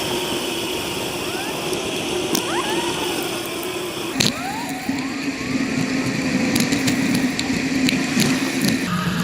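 Road and passing motor-traffic noise heard from a moving bicycle, a steady hum that shifts abruptly about four seconds in and again near the end, with a few faint clicks.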